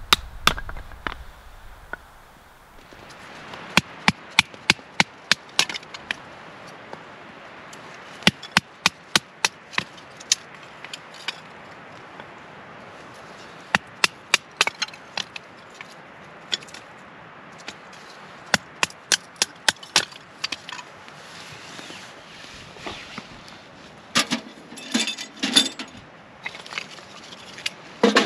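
Batoning kindling: a wooden baton striking the back of a knife blade to split firewood into kindling, sharp wooden knocks in quick runs of several strikes with pauses between. Near the end come a few louder, fuller knocks and clatters of split wood pieces.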